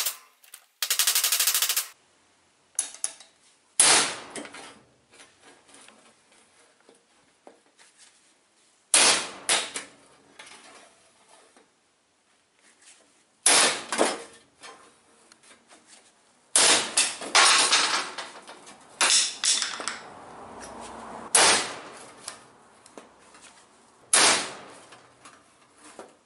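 Hammer blows on a homemade sheet-metal punch, a car engine valve driven through 1 mm zinc-coated steel sheet to punch holes: about seven sharp metallic strikes a few seconds apart, with lighter metal clatter between them as the sheet is moved.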